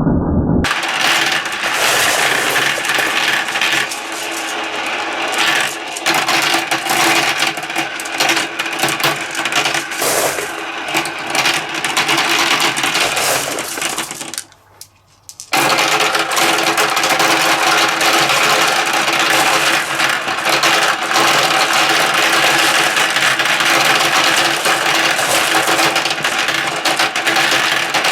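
Many marbles rolling and clattering down a plastic Kumikumi Slope marble-run track: a dense, continuous rattle of clicks. It cuts out for about a second halfway through, then starts again.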